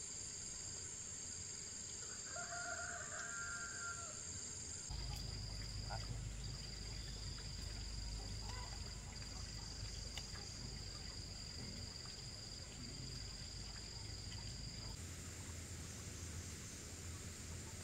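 A rooster crows once, about two seconds in, over a steady high chirring of insects. A low rumble comes in about five seconds in and cuts off near the end.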